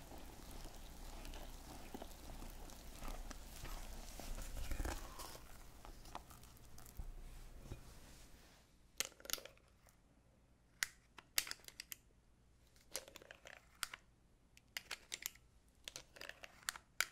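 Silicone whisk stirring flour and cocoa powder into melted chocolate in a glass bowl: a steady scraping swish. About eight seconds in it gives way to thick chocolate batter being scooped with a spatula and dropped into a small ceramic dish, a string of short scraping taps and soft plops.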